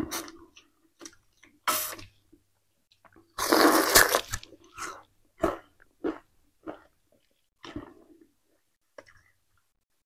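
Peeled sugarcane being chewed close to the microphone: a string of short, wet crunching and sucking sounds, with one longer, louder wet burst about a third of the way through.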